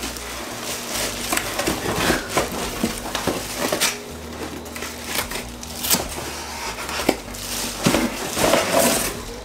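Plastic wrapping crinkling and a cardboard box rustling as heavy nonstick pans are lifted out, with irregular knocks and clinks of the cookware against the box and each other.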